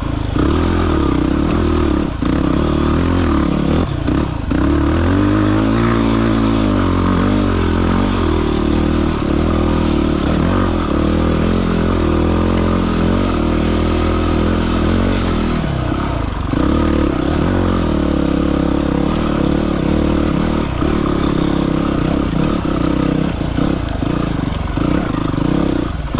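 Dirt bike engine running under load as the bike climbs a trail, its revs rising and falling as the throttle changes, with knocks and clatter from the bike over rough ground.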